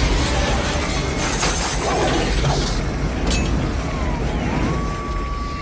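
Tornado wind roaring through a building, with debris crashing and breaking in it. A long high wail comes in near the end.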